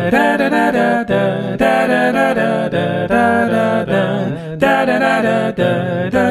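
A show's theme song sung a cappella: voices singing a melody with no instruments.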